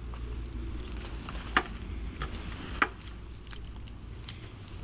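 Metal buckles on stretcher lifting straps clicking and knocking a few times as the webbing is handled, the two sharpest clicks about a second and a half and three seconds in, over a steady low rumble.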